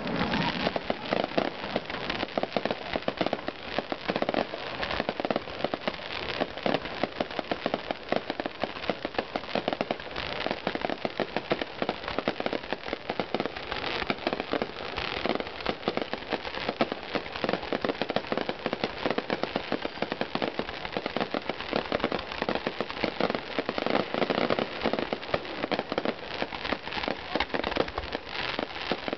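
Fireworks display firing in rapid succession: a dense, continuous crackle of many quick pops.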